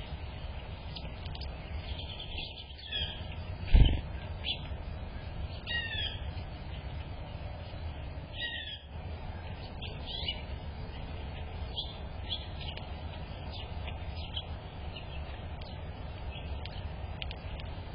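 Small birds chirping, with short, quick, down-curving call notes scattered through, over a steady low rumble. A sharp thump stands out about four seconds in.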